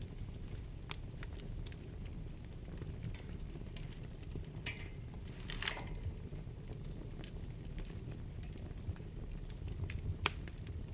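Wood fire burning in a fireplace: a steady low rumble of flames with scattered sharp crackles and pops. There are two brief hissing sputters a little before halfway, and a loud pop near the end.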